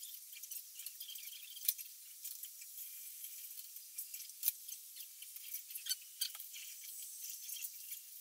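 Fingers working through flat-ironed hair, a faint crackling rustle with a few sharp ticks, two of them standing out.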